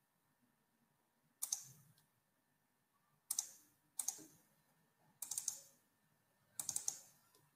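Faint clicking of computer keys, in five short bursts of a few quick clicks each, spaced unevenly a second or two apart.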